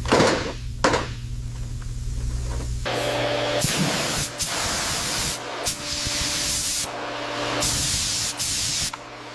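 Spray hissing in several long bursts with short breaks, typical of paint being sprayed onto a part during a restoration. Two sharp knocks come in the first second, before the spraying starts.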